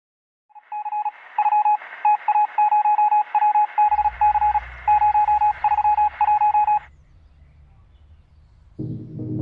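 Morse code beeping: one steady tone keyed on and off in short and long beeps over a radio-like hiss, stopping about 7 seconds in. A low rumble comes in partway through, and music starts near the end.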